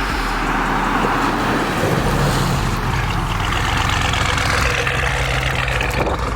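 Audi RS6's 4.0 twin-turbo V8 running through aftermarket downpipes and a full exhaust under a stage 2 tune, a low engine note under a steady rushing noise.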